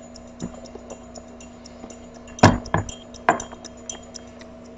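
Glass containers clinking and knocking on a tabletop as they are handled: a few sharp knocks, the loudest a pair about two and a half seconds in and another just after three seconds, over a faint steady hum.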